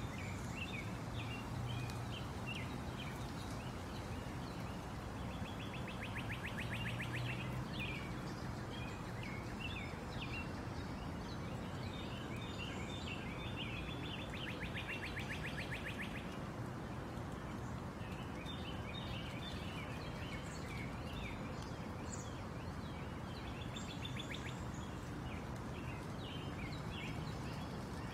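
Small birds chirping again and again over a steady rush of wind and water from a moving pontoon boat, with a low motor hum underneath. Twice a bird gives a rapid, even trill lasting about a second and a half.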